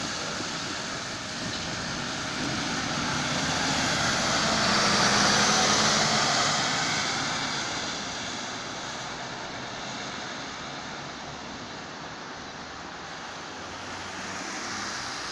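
Road traffic on wet streets: a vehicle passes close by, its tyre hiss on the wet road swelling to a peak about five seconds in and then fading to a steady background of traffic.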